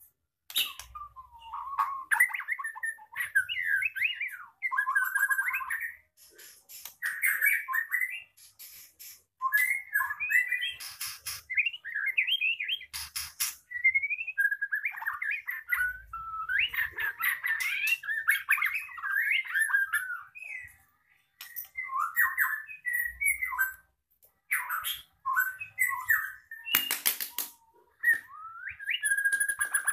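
A caged white-rumped shama singing: varied whistled phrases in quick runs, broken by short pauses, with a few sharp, shrill notes among them. The bird is in moult, still pushing out new tail feathers, yet keeps singing.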